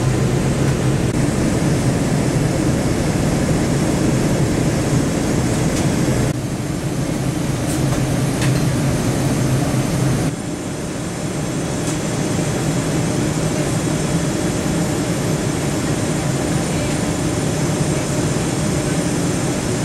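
Steady in-flight cabin noise of a jet airliner during descent: engine and airflow noise heard from a passenger seat, a constant low hum under a broad hiss. The level drops abruptly twice, about six and ten seconds in.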